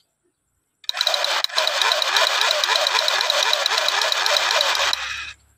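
Battery-powered toy gun's electronic firing sound effect playing through its small speaker: a rapid, evenly repeating buzzing rattle. It starts about a second in and fades out near the end.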